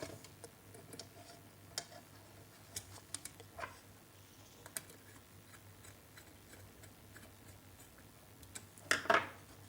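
A few sparse small clicks and taps as a wire is fitted and screwed into the terminal of a plastic switch on a power plug board, with a louder cluster of handling noise near the end over a faint steady hum.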